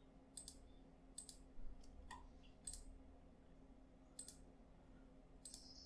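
Faint computer mouse clicks, about seven spaced irregularly, over near-silent room tone with a faint steady hum.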